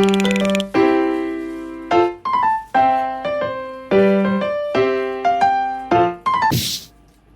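Background music played on electric piano, a light melody of struck notes. A brief hiss sounds about six and a half seconds in, after which the music falls quiet.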